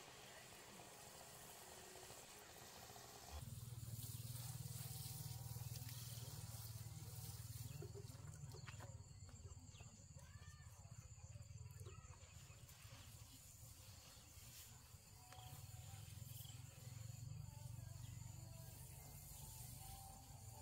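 Quiet outdoor ambience. A faint hiss gives way about three seconds in to a steady low hum, with a few faint chirps above it.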